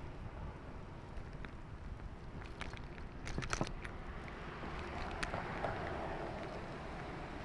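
Wind rumbling on the microphone and road noise from a bicycle ride, with a short cluster of sharp clicks and rattles about three and a half seconds in.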